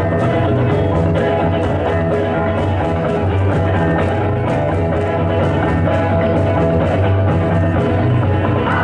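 Rock-style music with guitar and a steady drum beat.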